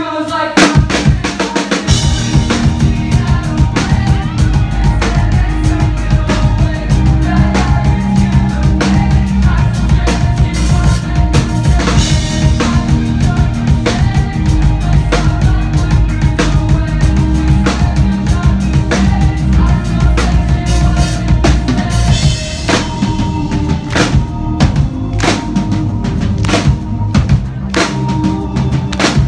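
A band playing a song live through a club PA, with a drum kit's kick and snare driving a steady beat over heavy bass. The full band comes in about half a second in, after a brief drop.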